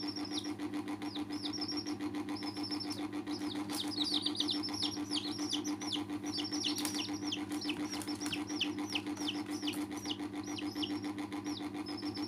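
Baby chicks peeping: many short, high, falling cheeps in quick clusters, busiest in the middle. Under them runs a steady low mechanical hum.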